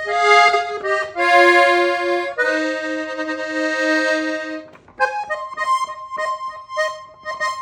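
A Gabbanelli accordion playing norteño-style music: a few held chords stepping down in pitch, one long sustained chord in the middle, then a quicker run of short notes with light clicks of the keys and bellows.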